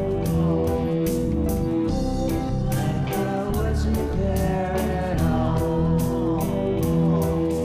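Band soundtrack music: sustained chords over a bass line, with a steady drum beat.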